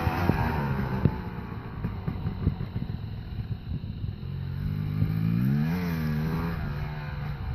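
Dirt bike engine revving and easing off: its pitch drops in the first second, then climbs to a peak a little before six seconds in and falls back. Scattered clicks and rattles run underneath.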